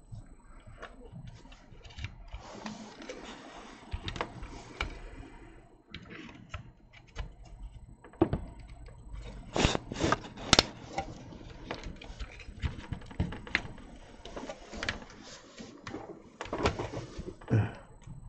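Handling noise of a graphics card being fitted to a desktop motherboard: gloved hands rustling, with scattered sharp clicks and knocks of the card and board, the loudest pair about ten seconds in.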